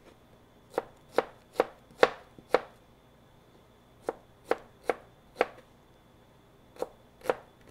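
A kitchen knife dicing an onion on a cutting board: crisp chops in three short runs of about two a second, with brief pauses between the runs.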